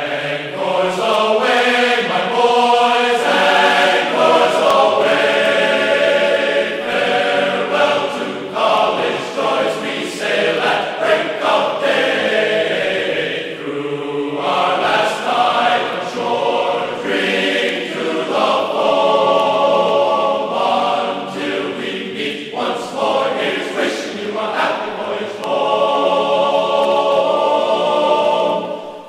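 A choir singing a slow chant in long held notes, with the pitch changing every second or few.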